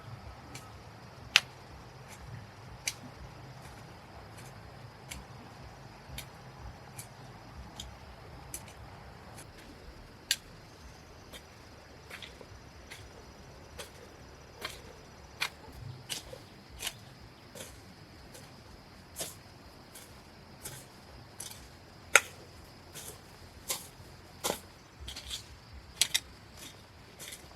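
Irregular light clicks and taps, a few of them sharper knocks, over a faint steady hiss.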